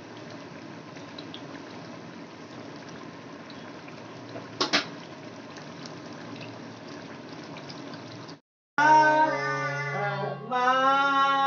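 Curry simmering and bubbling in a steel kadai, a steady low bubbling hiss with a brief sharp clatter about halfway through. After a short silence near the end, a harmonium sounds held notes that change pitch about two seconds later.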